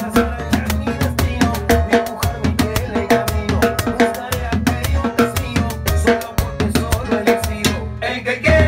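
Timbales struck with sticks in a fast salsa pattern, a dense run of sharp strokes. They play along with a salsa band recording that carries a steady bass line underneath.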